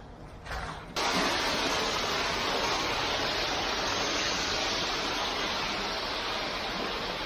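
Wet ready-mix concrete pouring off a mixer truck's chute onto the slab, a steady rushing that starts suddenly about a second in.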